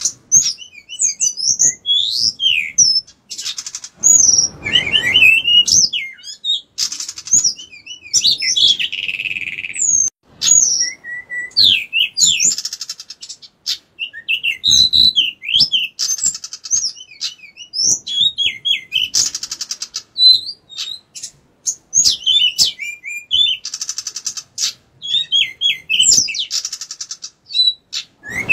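Male pied bushchat singing at length: quick phrases of rapid up-and-down whistled notes, broken by harsh scratchy passages and short pauses.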